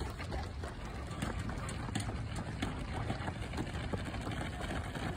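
Wind rumbling on an outdoor phone microphone, with scattered light footfalls of runners on a synthetic track.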